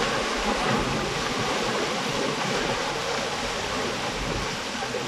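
Heavy cyclone rain with runoff pouring down a rocky hillside: a steady rushing hiss.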